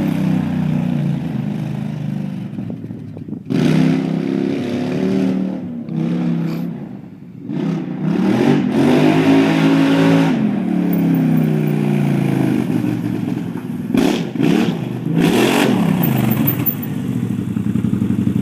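John Deere Gator RSX850i's V-twin engine through a Big Gun aftermarket exhaust, revving and easing off several times. The pitch climbs and falls in repeated sweeps, dropping lowest about seven seconds in.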